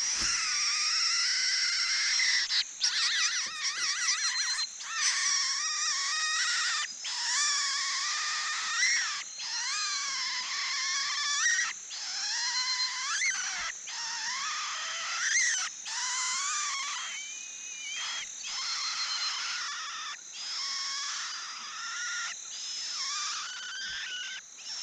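Cuckoo chick begging for food: a continuous high, wavering call whose pitch slides up and down, broken by short gaps every couple of seconds.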